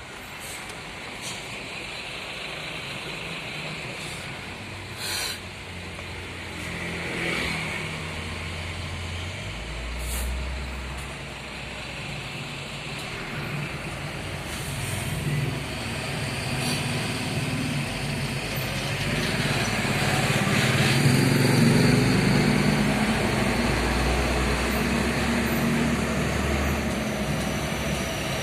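Road traffic dominated by heavy trucks: engines running at low speed in slow-moving traffic, with a few short hisses. It grows louder about two-thirds of the way through as a vehicle comes close.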